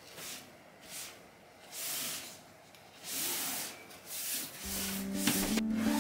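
A fabric storage box rubbing and rustling as it is slid off a high wardrobe shelf, in about five short swishes. Background music comes in near the end.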